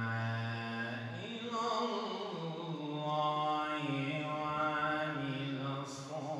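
A man's voice reciting the Quran in a slow melodic chant, drawing out long held notes that slide up and down in pitch.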